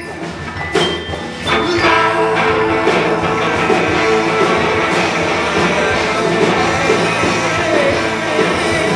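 Live rock band playing with electric and acoustic guitars, bass and drums, strummed guitar to the fore. It comes in at full volume about two seconds in.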